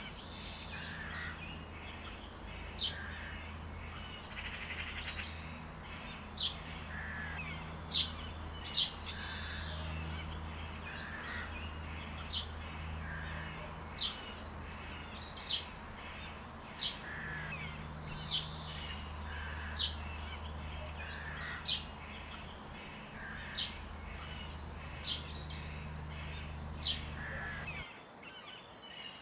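Songbirds chirping: a steady stream of short, sharp, high chirps that sweep downward, a few each second, over a low steady hum that stops suddenly near the end.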